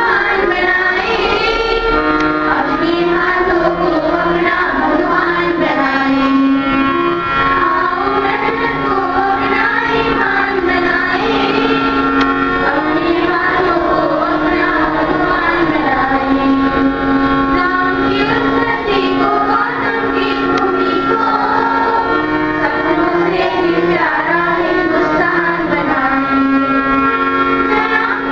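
Schoolgirls singing a song together into microphones, amplified, the voices wavering in pitch over steadily held notes with no break.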